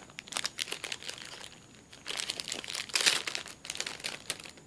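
Clear plastic bag crinkling and crackling in irregular rustles as a bagged wax melt is handled and opened, busiest in the middle and easing off near the end.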